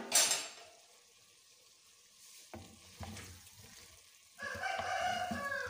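A clay lid comes off an earthenware cooking pot with a short clatter. A ladle then knocks and stirs through cooked cauliflower and potatoes in the pot, ending in a louder scrape of a little over a second.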